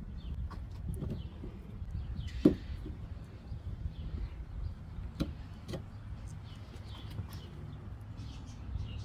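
Plastic clicks and snaps as a Mazda rear wiper blade is handled and worked off its wiper arm: one sharp snap about two and a half seconds in, then a couple of lighter clicks a few seconds later. Birds chirp faintly in the background.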